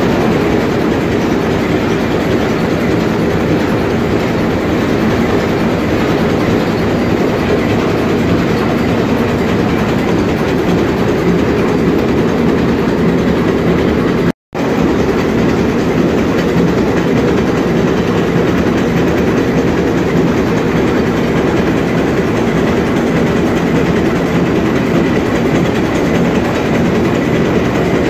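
Sulzer 6RTA62 slow-speed two-stroke marine diesel main engine running at full speed, heard close up as a loud, steady mechanical din. The sound cuts out completely for a split second about halfway through.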